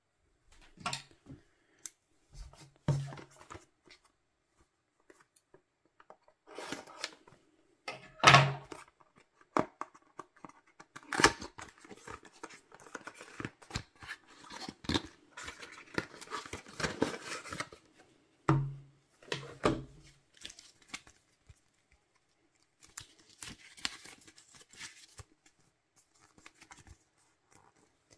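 A cardboard earbud box being handled and opened on a wooden table. Scattered taps and knocks come throughout, the loudest about eight seconds in. Then comes a long stretch of scraping and rubbing as the white inner box slides out of its sleeve, and lighter paper rustling near the end.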